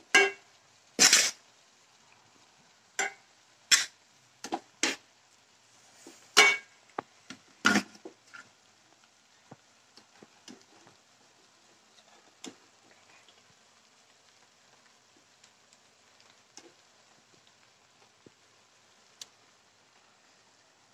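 A spoon knocking and scraping against a cooking pot as rice is put into the pot. There are about ten sharp clinks in the first eight seconds, then only a few faint ticks.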